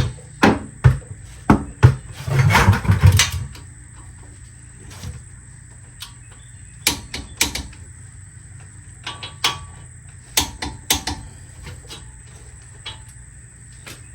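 Hand tools working on the brake caliper bolts: irregular sharp metallic clicks and knocks, with a quick run of clicks and dull thuds about two seconds in.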